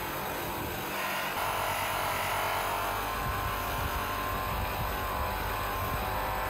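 Electric bench motor spinning a cloth buffing wheel, with the steel pickaxe head pressed against it for polishing: a steady whir with the rub of metal on cloth, growing fuller about a second in.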